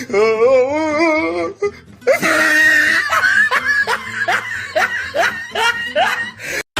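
A wavering, wobbly pitched voice, then about four seconds of loud, repeated ha-ha-ha laughter that cuts off suddenly near the end.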